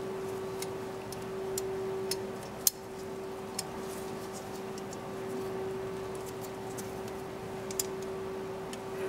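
Scattered light metallic clicks as a chrome-plated dental lab articulator is handled, its hinged arms and spring-loaded parts knocking together, with one sharper click about a third of the way in. A steady hum runs underneath.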